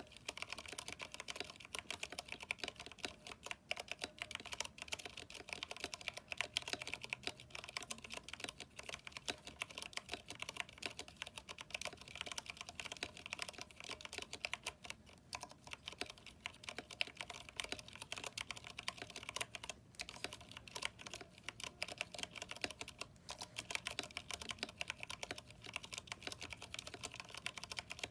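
Steady, fast typing on a Vortex 10th Anniversary Edition mechanical keyboard with Cherry MX Brown switches, NP PBT keycaps and lubed stabilizers: a continuous patter of key clicks and clacks with a few brief pauses.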